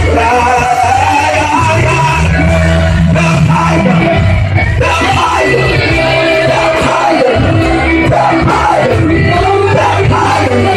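Loud live worship music: a man singing and shouting into a microphone over an electric bass and drums.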